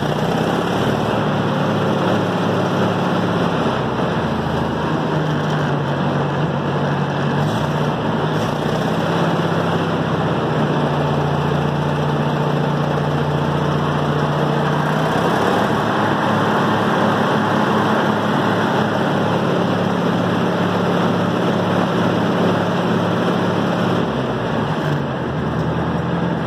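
Ford Jubilee tractor's four-cylinder gasoline engine running steadily, its speed shifting slightly a few times. It is running smoothly on a freshly cleaned carburettor, which cured the fault caused by debris in the carb.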